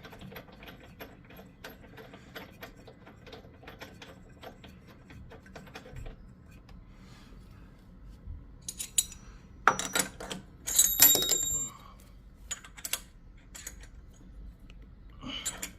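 Fast, light clicking as a new spark plug is tightened into a lawn mower engine with a spark plug wrench, followed by a few louder metal clinks, some with a brief high ring.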